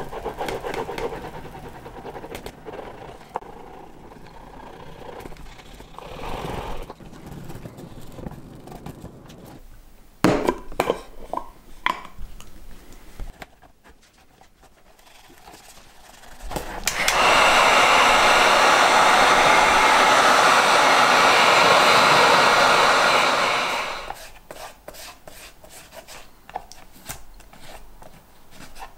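Leather being worked by hand, with rubbing and handling noises and a few sharp taps partway through. A little past the middle, a hot-air blower runs steadily for about seven seconds, the loudest sound here, warming Sno-Seal wax into the leather sheath, and then the rubbing resumes.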